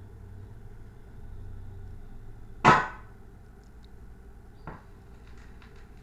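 A low steady hum with one loud, sharp knock about two and a half seconds in and a much fainter knock nearly two seconds later.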